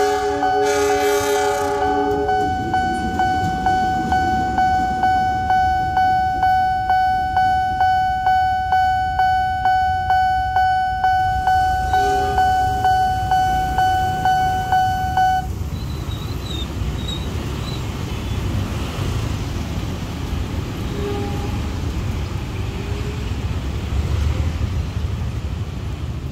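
A level-crossing warning bell striking about twice a second over a steady ringing tone, which stops abruptly about fifteen seconds in once the barriers have lifted. It is preceded at the start by a loud chord of horn tones from the shunting locomotive. Afterwards there is the steady rumble of motorcycles and cars moving across the crossing.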